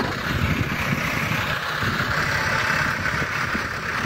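New Holland TS6.120's four-cylinder turbocharged diesel running steadily under load, pulling a heavy 26-disc harrow through dry tilled soil. A steady hiss rides over the engine's low rumble.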